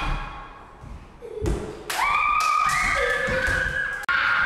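Two heavy thumps about a second and a half apart, then steady held tones at a few pitches, changing in steps.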